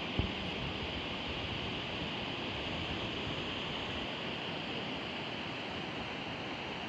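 Steady rush of fast-flowing water, with one short thump just after the start.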